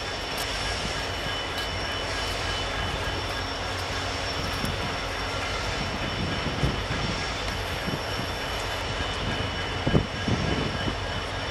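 A passenger train hauled by a WP-class steam locomotive pulling away: a steady rumble and hiss of the moving train, with irregular low knocks from about halfway through and one sharper knock near the end.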